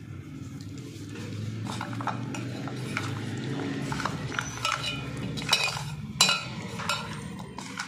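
Boiled drumstick pieces coated in spices and gram flour being mixed by hand in a steel bowl, with irregular clinks of pieces and fingers against the metal. The clinks grow sharper in the second half, over a steady low hum.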